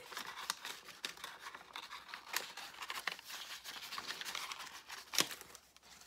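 Paper rustling and crinkling as cards and tags are pushed into a brown paper-sack pocket of a handmade notebook, with scattered small clicks and one sharper tap about five seconds in.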